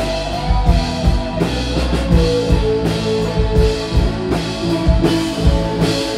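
Live rock band playing: a Stratocaster-style electric guitar over a drum kit beat.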